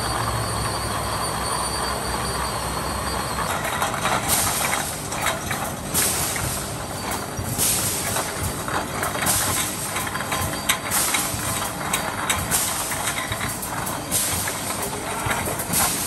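Automatic aerosol can filling line running: empty tinplate cans clatter and clink along a stainless slat-chain conveyor over a steady machine noise. From about four seconds in, short bursts of compressed-air hiss from the pneumatic filling and crimping heads repeat roughly every second and a half.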